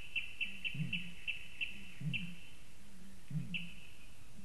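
Evening reedbed animal calls. A high-pitched ticking series starts fast and slows to single notes about a second apart, over a low, rising-and-falling call repeated about every second.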